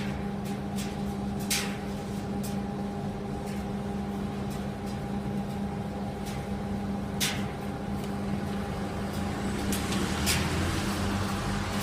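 SANYO coin-laundry gas clothes dryer running, its motor giving a steady hum with two held tones, the odd motor sound that some of these dryers make. Sharp clicks sound here and there over the hum.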